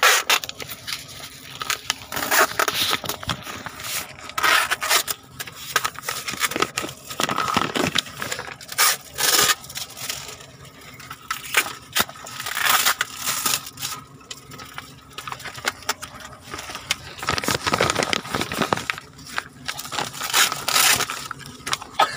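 Parcel packaging being torn open and crumpled by hand: a plastic courier mailer and the wrapping inside it, in irregular rustling, crackling and tearing bursts.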